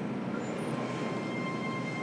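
JR Kyushu 303 series electric train running, heard from inside a motor car: a steady rail and running rumble. About a second in, a thin, steady high whine from the traction motors and inverter sets in.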